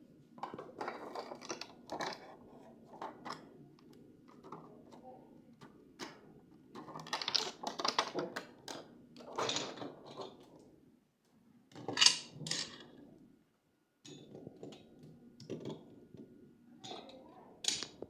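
Handling of small hard plastic items and packaging during an unboxing: irregular clicks, light knocks and rustling, with a sharper loud click about twelve seconds in and another near the end.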